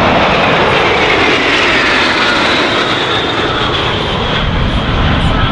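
Jet engines of six Aero L-39 Albatros jets flying in close formation overhead: loud, steady jet noise with a whine that falls in pitch as the formation passes.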